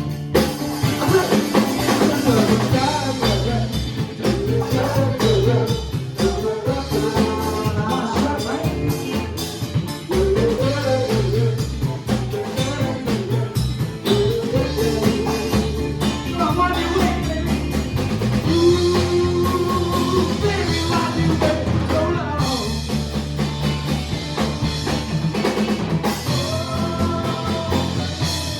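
A live band playing a blues-rock song: drum kit keeping a steady beat under bass and guitar, with a wavering melodic lead line.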